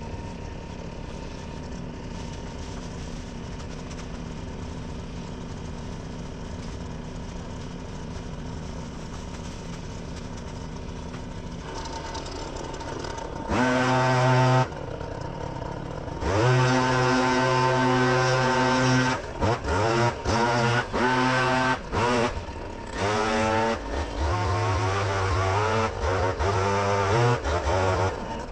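Small gasoline engine of leaf-vacuuming equipment running at a low, steady speed, then revved up and throttled up and down repeatedly, its pitch rising with each rev-up and dropping abruptly in between.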